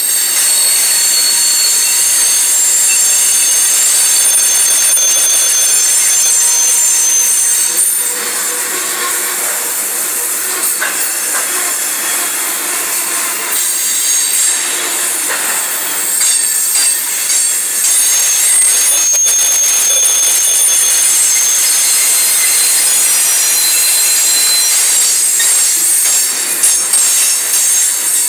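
Loaded coal hopper cars rolling past, their steel wheels screeching loudly in several high, shifting squealing tones, with scattered clanks and clatter from the wheels on the rails.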